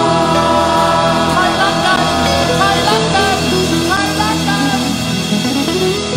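Live music: several voices singing a melodic song together over acoustic guitar accompaniment.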